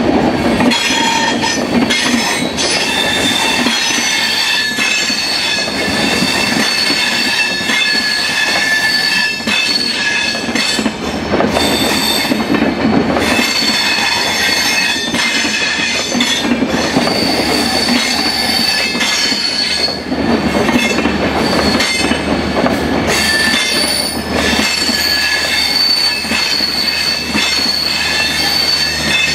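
Rajdhani Express coaches rolling past at close range, their wheels squealing in several steady high tones that fade and return, over the continuous rumble of wheels on the rails with occasional clacks.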